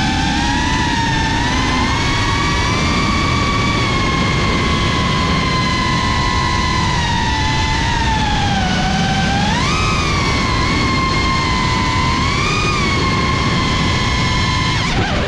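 GEPRC CineLog 35 cinewhoop quadcopter's brushless motors and propellers, heard from the drone itself: a high whine that glides up and down with the throttle, dipping and then climbing sharply about nine to ten seconds in, over the rushing noise of the props.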